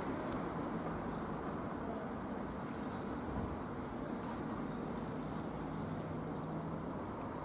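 Steady outdoor background rumble, with a low even hum through most of it and a couple of faint clicks.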